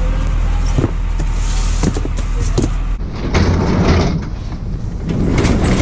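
Cardboard parcels being shoved and slid across the metal floor and shelves of a delivery truck's cargo area: a few knocks, then two longer scraping rushes, over a steady low hum.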